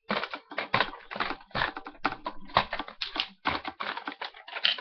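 Rapid, irregular clicking and clattering close to the microphone, several sharp strokes a second.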